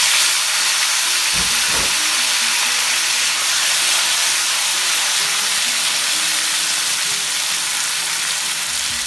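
Water-soaked slices of potato and eggplant frying in hot mustard oil in a kadai: a loud, steady sizzle that starts suddenly as they go into the oil and is stirred with a spatula. A couple of low knocks come about a second and a half in.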